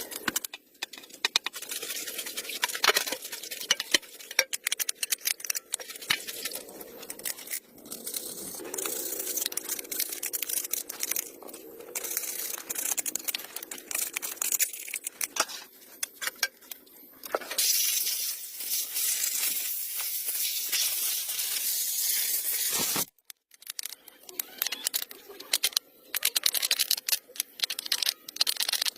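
Hand work on metal and parts: a dense run of clicks, knocks and scraping, then a steady hiss for about five seconds that cuts off abruptly, followed by more scattered clicks and scrapes.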